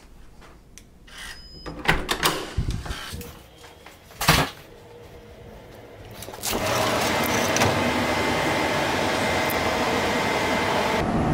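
Door handle and latch clicking, a door being handled with a sharp thump, then, about six and a half seconds in, a steady rush of outdoor city noise as a balcony door is opened high above downtown streets.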